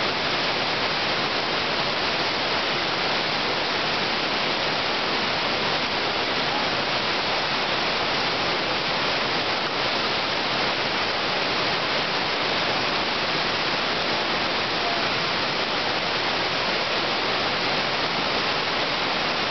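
Whitewater river rapids, water rushing over rocks: a steady, unbroken rush of noise.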